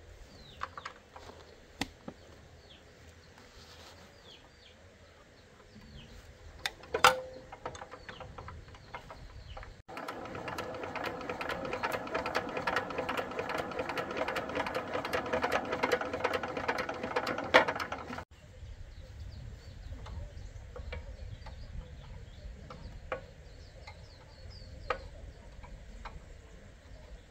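Hand work on a walking tractor's engine: scattered metallic clinks and knocks, one loud knock about seven seconds in, then a stretch of about eight seconds of fast, steady mechanical clicking that stops abruptly. Birds chirp faintly in the quieter parts.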